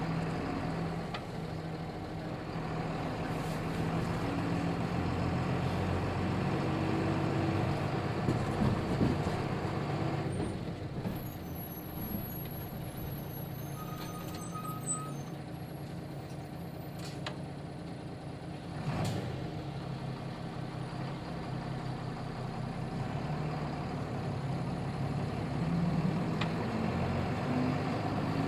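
Nissan Diesel KK-RM250GAN city bus under way, heard from inside: the diesel engine pulls steadily for about ten seconds, eases off to a quieter stretch through the middle, and picks up again near the end.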